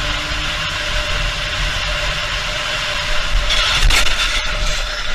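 Vehicle running at speed, a steady rush of road and wind noise with a steady hum. About three and a half seconds in, a sudden loud burst of noise with a sharp knock breaks in.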